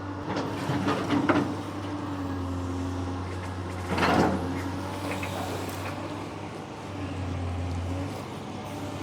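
Long-arm excavator's diesel engine running steadily while the machine works. A cluster of knocks in the first second or so and a louder scraping rush about four seconds in.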